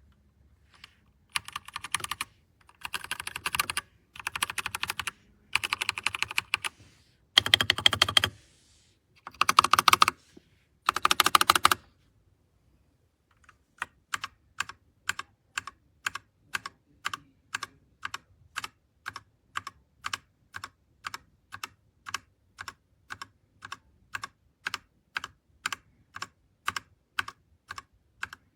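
Typing on an RK Royal Kludge RK61 60% mechanical keyboard: several short bursts of fast typing, then, after a brief pause, single keys pressed one at a time at an even pace of about two to three clicks a second.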